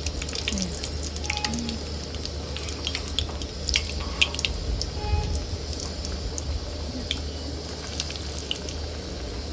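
Breadcrumb-coated potato balls deep-frying in hot oil: a steady sizzle with many sharp crackling pops, busiest a few seconds in.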